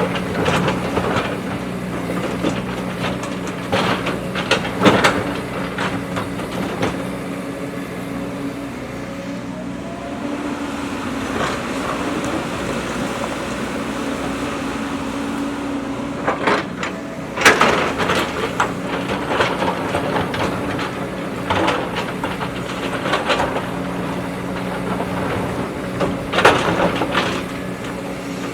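A JCB backhoe loader's diesel engine running steadily under work, with scattered metallic clanks and knocks from the digging gear, the loudest about two-thirds of the way through.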